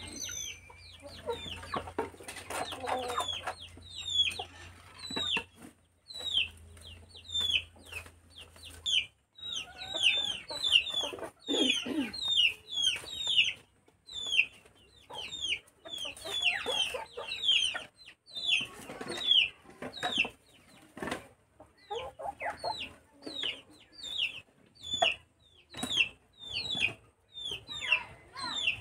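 Chickens clucking, with a steady run of short, high, falling chirps. There are a few knocks of split firewood being picked up and stacked.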